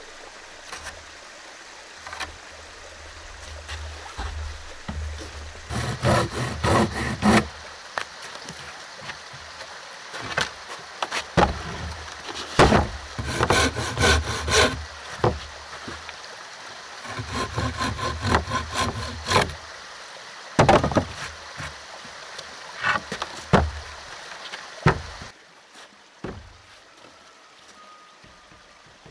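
Handsaw cutting a wooden board in several bursts of quick back-and-forth strokes, with a few sharp knocks of wood between them.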